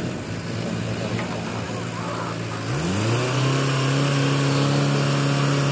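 Diesel engine of an Escorts Hydra 14 mobile crane running steadily, then revving up about three seconds in and holding at the higher speed while the crane swings a concrete culvert pipe on its hook.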